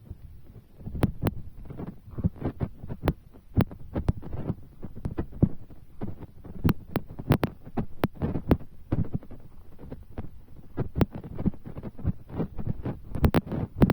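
Rain: large drops striking close to the microphone as dense, irregular taps and dull thumps, several a second.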